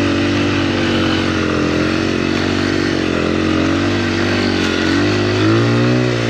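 Honda XR100 dirt bike's single-cylinder four-stroke engine running steadily as it rides through snow, its pitch rising and falling with the throttle and climbing near the end.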